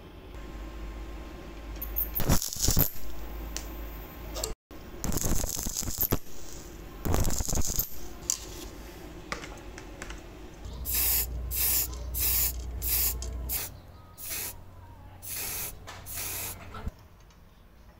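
About nine short hissing sprays from an aerosol spray-paint can in the second half, coating the car jack's parts black. Before that, irregular crackling bursts as a part is arc-welded.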